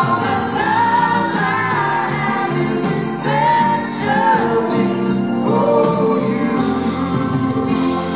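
A pop duet played live: a man and a woman singing over a full band with electric guitar.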